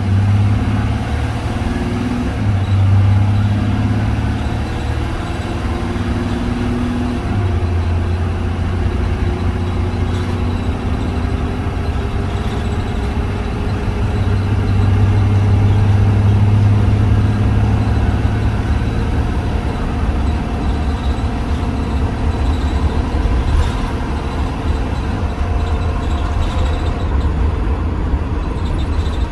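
Blue Bird Vision school bus driving, heard from inside: a steady low engine drone with road noise, its pitch shifting up and down as the bus changes speed, loudest about halfway through.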